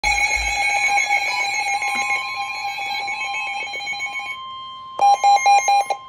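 Weather alert radios going off for a severe thunderstorm warning: a fast electronic alarm chirping that fades out after about four seconds, then four loud beeps near the end. Under it, from about two seconds in, runs the steady NOAA Weather Radio alert tone.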